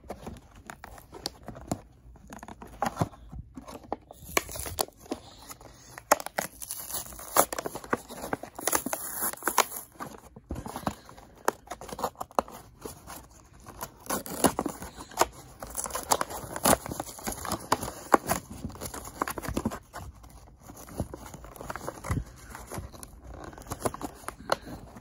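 Cardboard and clear plastic toy packaging being torn open and handled by hand, with irregular crackles, crinkles and snaps.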